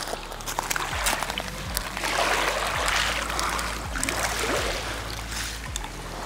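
Shallow water washing and trickling over a beach of broken shells, swelling a little about two seconds in, with soft background music underneath.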